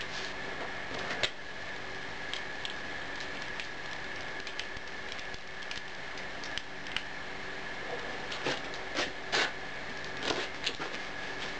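Cast iron melting furnace's burner running steadily, with a steady high tone over a constant rush, while molten iron from melted brake rotors is poured from a crucible into a mold. Scattered sharp clicks and crackles sound over it, more of them near the end.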